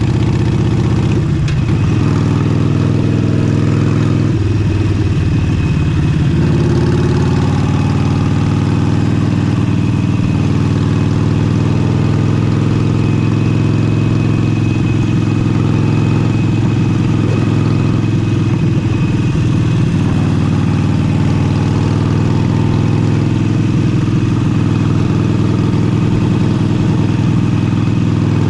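Harley-Davidson Forty-Eight's air-cooled 1200 cc Sportster V-twin running steadily through an aftermarket exhaust, with small shifts in engine speed a couple of times early on.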